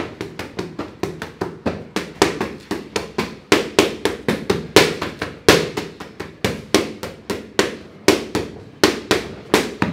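Boxing gloves striking focus mitts in fast combinations: a string of sharp slaps and thuds, about three or four a second, the hardest shots near the middle.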